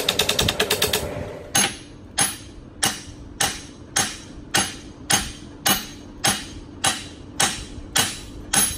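Hammer striking the steel yoke ear of a driveshaft held in a vise, driving a new U-joint bearing cap down into the yoke. A quick run of light taps comes first, then steady metallic blows about every half second, each with a brief ring.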